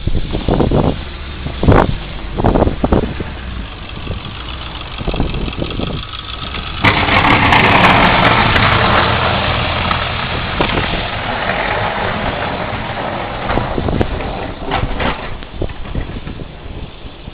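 A few separate knocks and thumps, then about seven seconds in a nearby engine starts abruptly and runs steadily, slowly fading toward the end.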